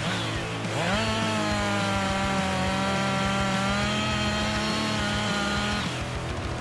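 Chainsaw engine revving up about a second in, held at high speed for several seconds, then dropping back off near the end.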